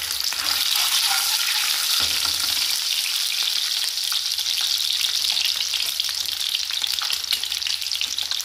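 Whole peeled hard-boiled eggs frying in hot oil in a nonstick pan: a steady sizzle with fine crackling.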